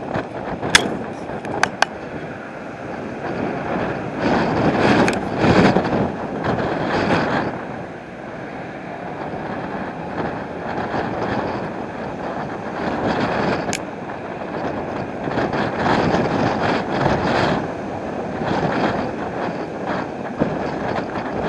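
Storm wind gusting over the microphone: a constant rushing noise that swells and eases in surges, strongest about five seconds in. A few sharp clicks sound in the first two seconds, and one more near the middle.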